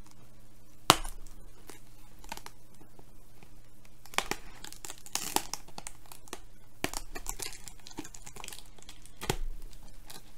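Bubble wrap and packing tape being torn and pulled away from a heavily wrapped package, crinkling and crackling in irregular bursts, with one sharp snap about a second in.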